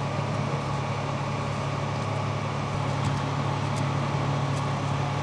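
Steady low drone of idling fire-truck diesel engines, running without a change.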